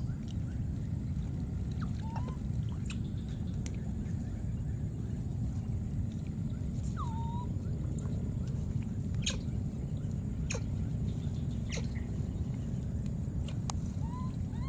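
A few short, high chirping animal calls and sharp clicks over a steady low rumble and a faint high steady whine. Near the end comes a run of quick arched chirps, about three a second.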